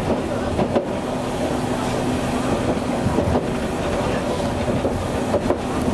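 Hankai Tramway streetcar running along the track: a steady rumble and hum, with a few sharp clicks from the wheels passing rail joints.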